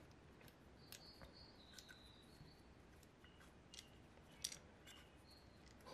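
Near silence with a few faint, short clicks and taps as the OS 50 FSR model glow engine's metal crankcase is handled and worked on the piston. The loudest tap comes about four and a half seconds in.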